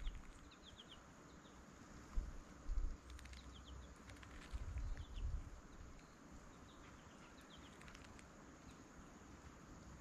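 Faint, short high chips of small birds in the surrounding woods, in little groups of two or three. A few dull low thumps from a red-bellied woodpecker working at nuts on the platform feeder.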